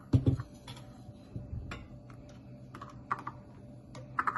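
Kitchen items being handled on a countertop: a dull thud just after the start, then scattered light clicks and taps.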